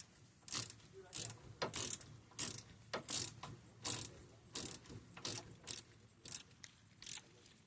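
Ratchet of a torque wrench clicking in short back-strokes, a click or a quick pair of clicks every half second or so, while the wheel bearing hub bolts are run down to 48 ft-lb.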